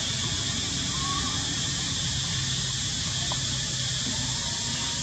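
Steady outdoor background hiss with a low rumble underneath, and a faint short chirp about a second in.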